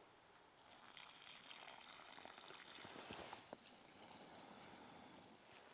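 Faint steady hiss of a kettle of water heating on a wood-burning stove, close to the boil with only surface bubbles showing, and a few faint clicks around the middle.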